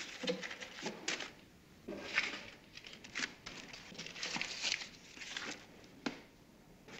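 Paper banknotes rustling and crumpling as they are grabbed and stuffed into a bag, in irregular bursts with a few small knocks.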